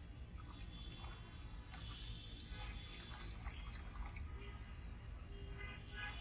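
Water from a tap running into a water balloon held over the spout, with background music.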